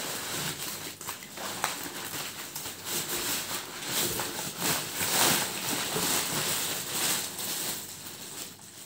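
Packaging of a mail-order fish parcel being torn open and handled: irregular crinkling and rustling with many small clicks and crackles, fading near the end.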